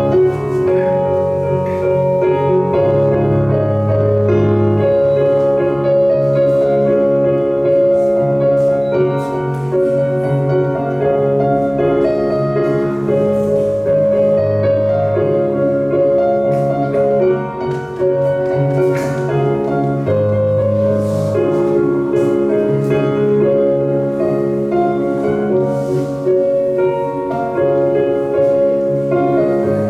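Instrumental music led by piano, with sustained notes and slowly changing chords.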